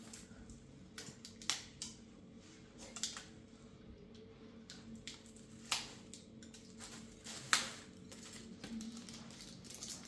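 Scattered sharp clicks and clinks of plates, spoons and a small jar being handled on a floor cloth during a meal, four of them standing out, over a faint steady hum.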